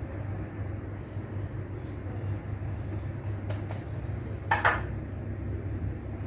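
Steady low hum, with a few light clicks and a short clatter about four and a half seconds in.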